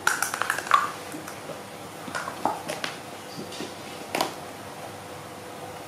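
Scattered sharp clicks and taps from handling: a quick cluster at the start, a few more about two seconds in, and one louder tap about four seconds in, over a faint steady hum.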